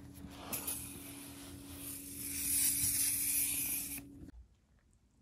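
Aerosol spray can hissing as it sprays paint onto a vinyl seat cushion. The spray grows louder partway through and cuts off suddenly about four seconds in.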